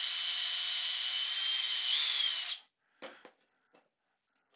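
Cordless drill running steadily as a twist bit bores a pilot hole into the end of a wooden staircase spindle; its pitch rises briefly about two seconds in, then it stops suddenly. A short clatter follows about a second later as something is set down on the bench.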